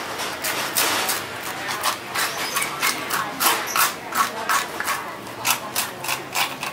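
A toothed fish scaler scraping the scales off a large snakehead fish in quick repeated strokes, about three a second, each a short rasp.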